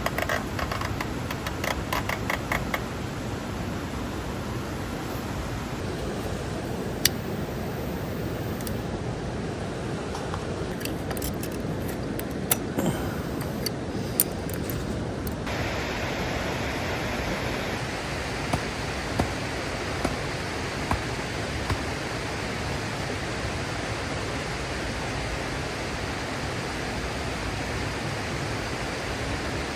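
Mountain stream rushing steadily, with a quick run of light clicks near the start and a few scattered taps later on. About halfway through, the water sound abruptly becomes brighter and hissier.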